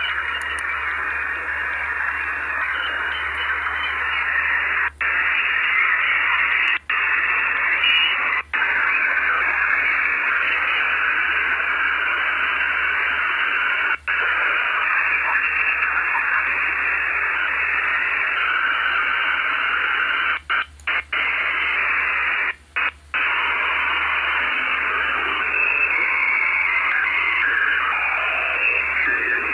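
Radio receiver static while scanning frequencies for numbers stations: a steady hiss with no voice or tones coming through. It cuts out to silence for an instant about nine times, several of them in quick succession past the middle.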